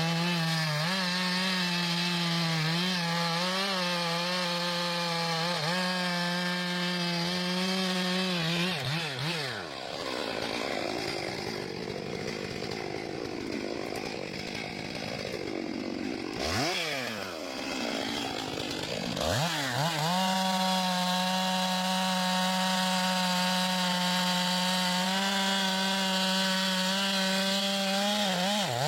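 Two-stroke chainsaw, likely a Stihl MS 661, running at full throttle in a cut. About nine seconds in it drops back off the throttle for roughly ten seconds, with one brief rev in the middle. It then goes back to full throttle and runs steadily again.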